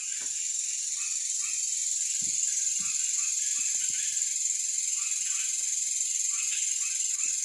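Night insect chorus: a steady high-pitched shrill, with short chirps repeating every half second to a second and a few soft low thumps.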